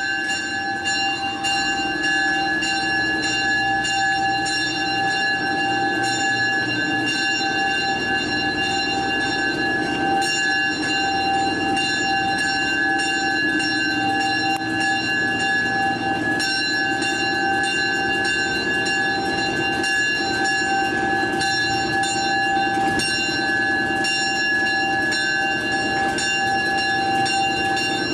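Locomotive bell ringing continuously as an EMD SD38 diesel rolls slowly through the engine house, with a low rumble from the moving locomotive underneath. The diesel engine is not yet running; the locomotive is drifting out before being started.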